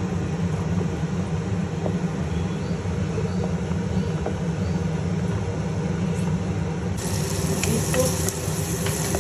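A pot of pasta and vegetables at a rolling boil over a steady low rumble. About seven seconds in, a hissing sizzle with small crackles starts: chopped onions frying in butter in a pan.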